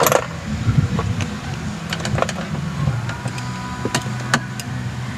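Hand screwdriver working the Phillips screws in the dash trim around a BMW factory radio: scattered sharp clicks and taps of metal on screw and plastic, over a steady low hum.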